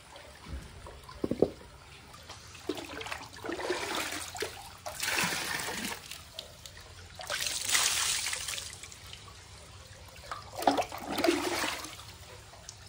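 Hot-spring bath water poured over the body in about four splashing pours of a second or more each, with steadier trickling between them. A sharp knock comes about a second in.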